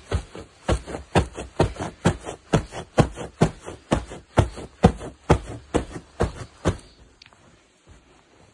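Shoes trampling on a bed: a quick, even run of thuds, about four a second, that stops about seven seconds in.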